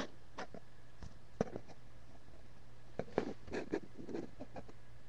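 Trading cards being handled: scattered light clicks and short rustles of cards and plastic sleeves over a faint steady hum.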